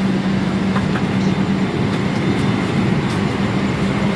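Steady hum of a parked Boeing 777-300ER's cabin air conditioning: rushing air over a constant low drone, with a few faint clicks.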